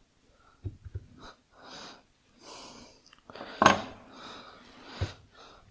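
Several sharp knocks and clunks of metal engine parts and tools being handled on a scooter engine case, the loudest about three and a half seconds in, with breaths through the nose in between.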